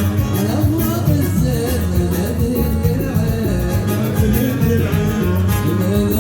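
Yemeni wedding zaffa music: an electronic keyboard (org) playing an ornamented, sliding melody over a steady drum beat.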